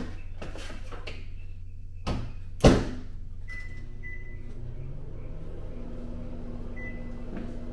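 A soft thud and then a sharp bang as a door is shut, followed by a few short high electronic beeps and a steady low hum that starts near the end.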